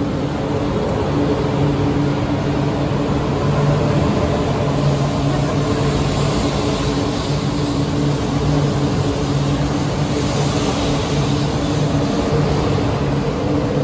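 E4 series double-deck Shinkansen pulling out along the platform, its cars rolling past with a steady low hum under a rushing noise. The hiss of the passing cars grows somewhat about six to eleven seconds in.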